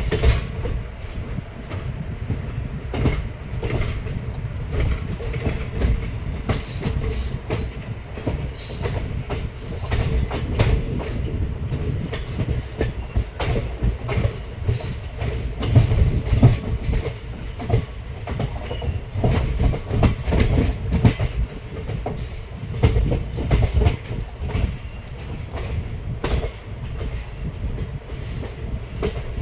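Indian Railways express passenger train running, heard from on board: a steady low rumble with the wheels clattering irregularly over rail joints.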